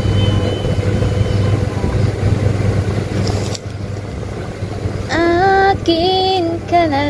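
A steady low hum, over which a woman starts singing about five seconds in, holding a few long notes that step up and down in pitch.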